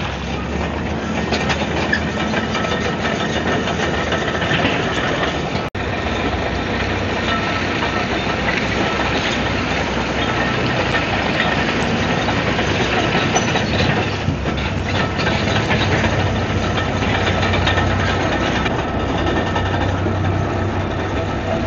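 Komatsu D155AX-7 crawler bulldozer at work: its diesel engine runs under load while the steel tracks clatter, a steady loud din. The sound drops out for an instant about six seconds in.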